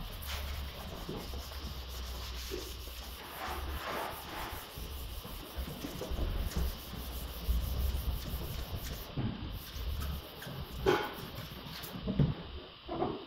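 Hand wet sanding of a primer-coated car bonnet: a sanding pad scrubbed back and forth over the panel in irregular strokes. Two sharper knocks stand out near the end.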